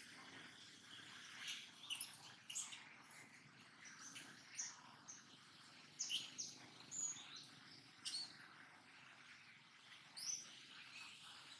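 Pet monkey making repeated short, high-pitched chirps and squeaks at irregular intervals, some sliding quickly in pitch.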